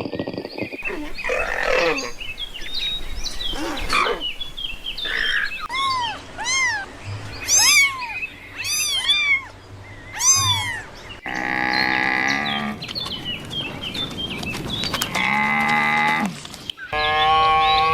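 A string of different animal calls cut one after another. In the middle comes a run of about a dozen short calls that rise and fall in pitch. These are followed by two longer, drawn-out calls, and a new sustained call begins near the end.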